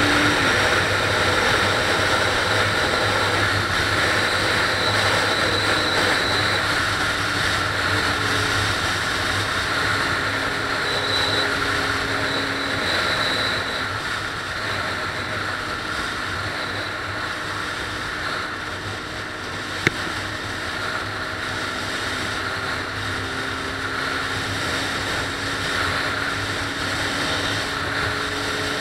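A vehicle travelling at freeway speed: steady engine drone with road and wind noise. A single sharp click about two-thirds of the way through.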